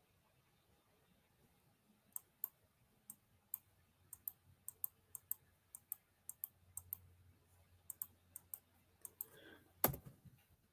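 Faint computer keyboard keys clicking, about three a second, with a louder thump near the end.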